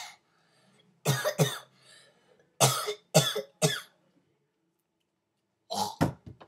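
A person coughing in short bunches, about eight coughs in all, in groups of one to three with pauses between.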